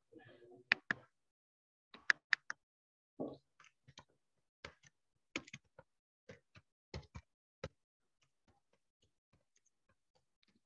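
Quiet, irregular clicking of computer keyboard keys and a mouse, several sharp clicks a second, fading to faint ticks for the last few seconds.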